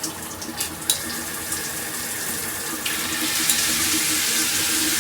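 Water spraying from a handheld shower head. About three seconds in, the spray gets louder and hissier as it switches to another spray setting.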